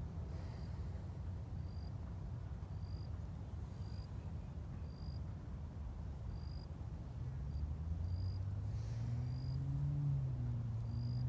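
A short, high chirp repeats about once a second over a low outdoor rumble. From about seven seconds in, a low engine hum comes in, rises slightly in pitch and grows louder.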